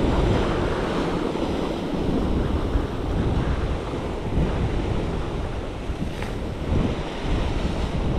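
Sea surf washing against a rocky shore, with wind buffeting the microphone in a steady low rumble.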